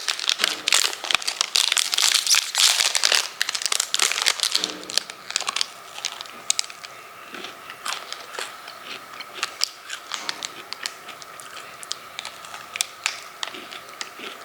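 A protein bar wrapper being torn open and crinkled, dense and loud for the first four seconds or so, then thinning to occasional single crinkles and clicks.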